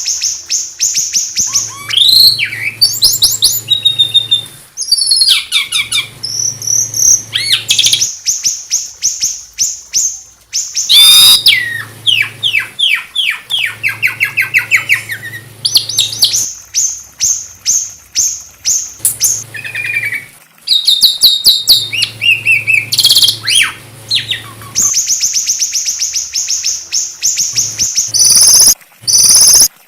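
A small songbird singing loud, varied phrases: fast trills of rapidly repeated notes, rising and falling whistles and sharp high sweeps, with short gaps between phrases.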